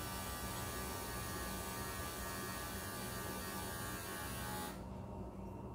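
Electric pet grooming clippers running with a steady buzz, switched off suddenly about five seconds in.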